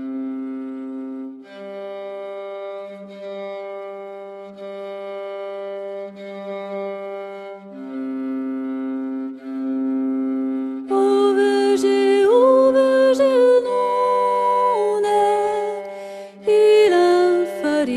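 Film score music of slow, held low notes that change every few seconds, joined about eleven seconds in by a louder, higher melody that slides between notes.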